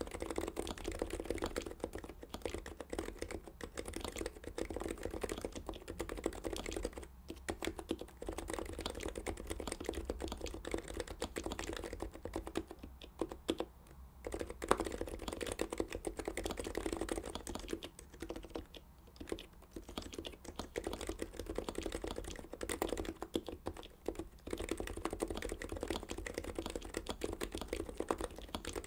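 Fast, continuous touch-typing on a Heavy-9 Topre-style keyboard fitted with Deskey sliders and BKE-style rubber domes over springs, under GMK keycaps: a dense run of keystrokes with a few brief pauses.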